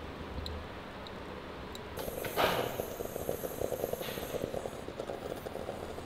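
Morphy Richards Europa espresso machine brewing: a faint hum at first, then about two seconds in a hiss and a rapid gurgling sputter as hot water is forced under pressure through the coffee into the glass pot.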